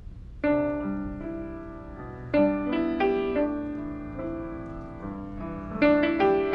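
Grand piano played live: a chord struck about half a second in and left to ring, another chord about two seconds later followed by a few more notes, then a quicker string of notes near the end.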